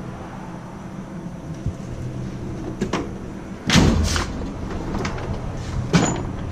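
Snap-on Epiq tool box drawers sliding and shutting, with a loud double knock about four seconds in and another knock near the end, over a steady low hum.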